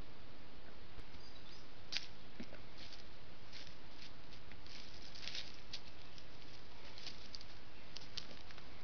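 Sambar deer stepping and shifting on dry forest leaf litter: scattered soft crackles and ticks, a couple of sharper clicks about one and two seconds in, over the steady hiss of a trail camera's microphone.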